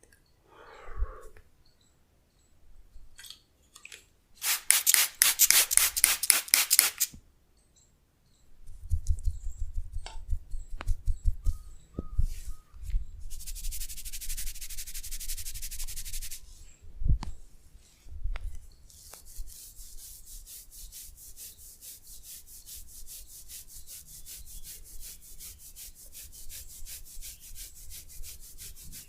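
Hands rubbing briskly over skin and hair during a head and neck massage. There is a loud spell of quick friction strokes, then soft low pats in the middle, and a steady run of fast, even rubbing strokes through the second half.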